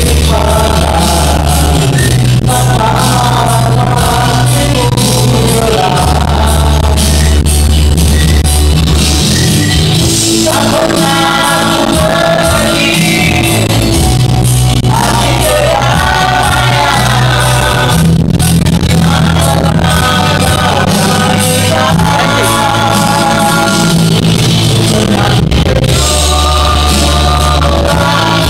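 A man singing karaoke into a handheld microphone over a backing track with long held bass notes. His voice comes in sung phrases with short breaks between them.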